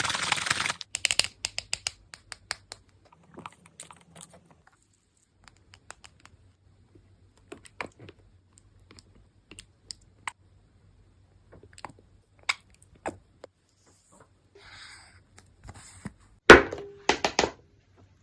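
Gift packaging being handled: scattered light taps, clicks and rustles, with a loud crackle of paper or plastic being crumpled or torn about sixteen seconds in.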